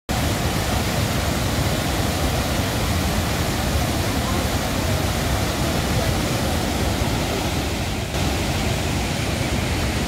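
Dhuandhar Falls, the Narmada River plunging about 30 metres over rock: a steady, full roar of falling water, with a short dip about eight seconds in.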